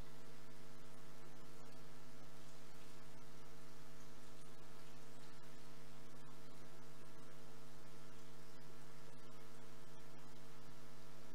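Steady electrical hum, a mains buzz in the audio line, unchanging throughout with faint hiss beneath it.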